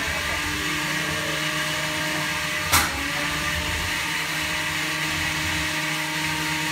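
Small electric motors of combat robots running with a steady whine. There is one sharp knock about three seconds in.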